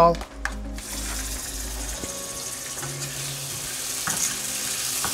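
Mustard seeds and dal lentils sizzling in hot oil in a stainless steel frying pan, the tempering (tadka) stage; the sizzle starts about a second in and holds steady, with a spatula stirring through it near the end.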